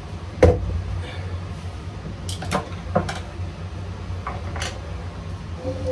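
Several short knocks and clicks of parts and tools being handled and set down on a workbench, the loudest about half a second in, over a steady low hum.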